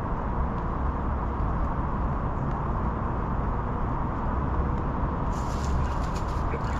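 Steady low rumbling of wind buffeting the microphone. About five seconds in, a short rustle joins it as the fishing rod is swept up to set the hook.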